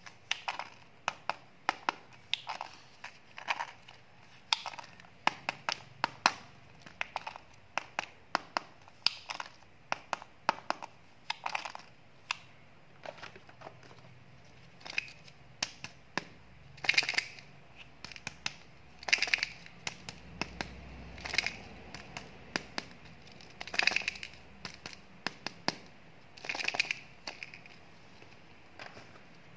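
Hands handling plastic-packaged candies in a pile of surprise eggs and small plastic candy tubs, making many sharp plastic clicks and clacks. Several louder bursts of crinkling packaging come in the second half.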